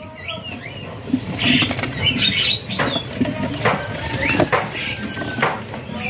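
Small caged young ciblek gunung (prinias) moving about their cage, with short high chirps and several sharp taps and flutters over a noisy background.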